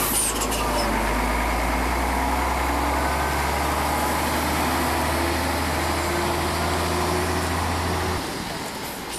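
Truck's diesel engine running with a steady low drone, which falls away about eight seconds in.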